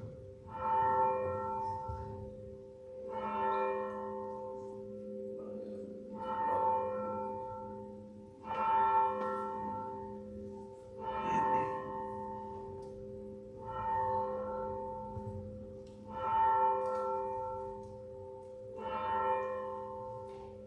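A single church bell tolling slowly and evenly, struck about every two and a half seconds, its low hum ringing on between strokes.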